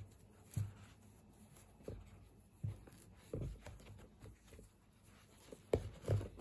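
Faint rustling and soft bumps of hands tying the yarn laces of a crocheted sneaker, a handful of short handling sounds that come a little thicker and louder near the end.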